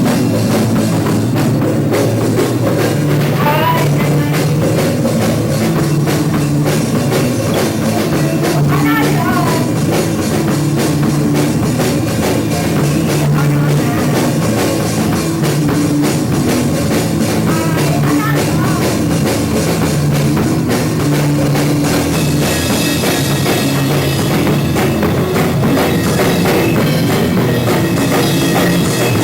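Loud, continuous heavy rock band playing: driving drum kit with distorted guitar and bass, dense and unbroken throughout.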